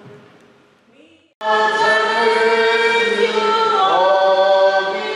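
Choir singing. An earlier sung phrase fades away, and after a brief gap about a second and a half in, loud choral singing cuts in abruptly and carries on.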